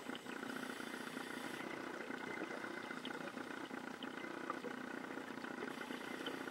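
A steady mechanical drone with a fast, even pulse, like an engine running.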